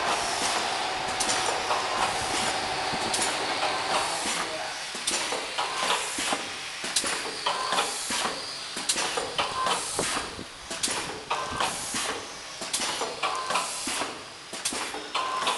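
Bag-packing machine with a pneumatic piston filler running while it fills and seals small bags with water. The steady mechanical clatter carries frequent sharp, irregular clicks and hisses of air.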